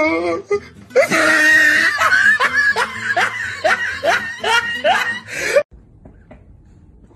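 A person laughing hard in a run of short bursts, about two or three a second, that cuts off suddenly near the end.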